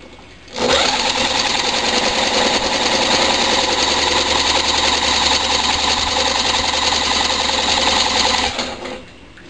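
Electric drill spinning a vertical-shaft lawnmower engine over through its starter cup for about eight seconds, a steady mechanical run with a fast even pulse that starts suddenly and winds down near the end. The engine is being cranked on HHO (hydrogen-oxygen) gas from an electrolysis cell instead of petrol and does not catch and run.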